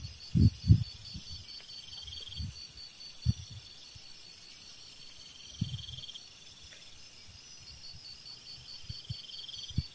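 Night insects calling steadily: a fast, high-pitched pulsing chirr, with a shorter buzzing trill that comes back every three to four seconds. A few soft low thumps, the loudest in the first second and just before the end.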